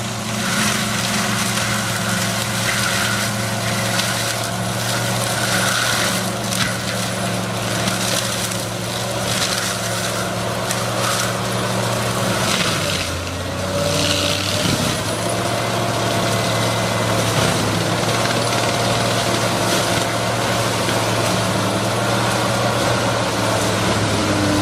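A heavy machine's engine runs steadily under load, with grinding and crushing noise over it as wood is broken up. About halfway through, the engine note shifts and then runs steady again.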